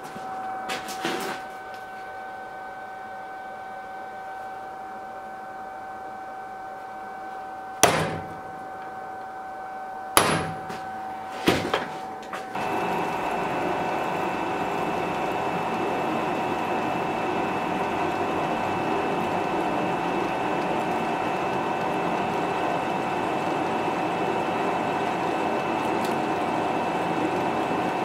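An electric workshop machine hums steadily, with a few sharp knocks of metal being handled. About twelve seconds in, a louder machine starts and runs on steadily with a high whine and a rushing noise, as of a power tool cutting or grinding metal.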